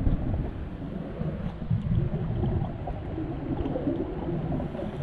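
Scuba divers' exhaled bubbles from their regulators, an irregular low gurgling rumble heard underwater, swelling in surges as breaths are let out.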